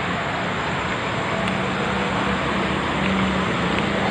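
Steady rushing of a shallow river flowing over rocks, with a faint low hum coming and going.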